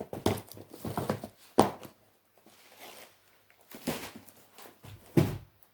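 Cardboard kit boxes being handled and set down: a few separate knocks and thumps with some rustling between them, the loudest near the end.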